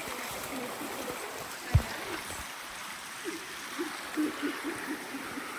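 Steady rush of a stream's running water, with one sharp thump about two seconds in.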